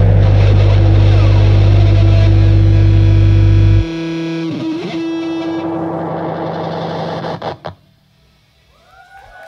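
Distorted electric guitar and bass ringing out on a held closing chord of a live rock song. The deep bass cuts out about four seconds in, the thinner guitar noise carries on and then stops abruptly, and faint crowd voices follow near the end.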